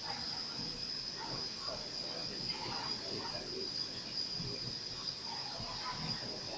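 Pool-hall room tone: a steady, thin, high-pitched hiss-like whine with faint, indistinct voices murmuring in the background.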